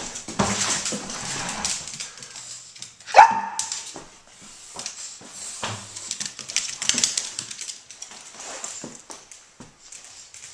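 Small affenpinscher / Brussels griffon dog playing: its claws click and scrabble on hard floors as it runs, and it gives one short, sharp bark about three seconds in.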